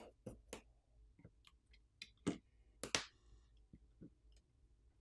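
Faint, irregular small metal clicks and taps of a precision screwdriver working on the standoff screws in a phone's metal frame. The two loudest clicks come about two and a half and three seconds in, the second with a brief ring.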